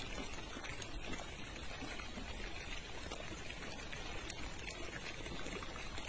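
Steady outdoor water noise, a low even hiss with scattered small ticks.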